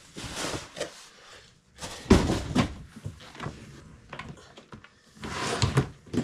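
A black hard-shell guitar case being handled on a wooden table: rustling at first, a heavy thump about two seconds in, then lighter knocks and a scrape as the case is tipped up and stood on end.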